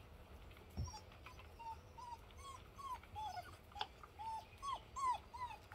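Cane Corso puppy whimpering: a quick series of short, high whines, about three a second, starting a second or so in. A single knock comes just before them.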